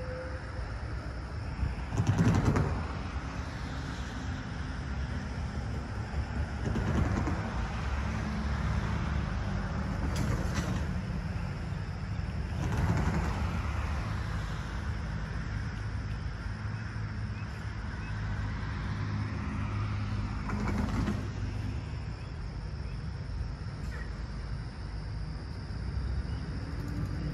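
Outdoor ambience: a steady low rumble with five short rushing bursts, the loudest about two seconds in.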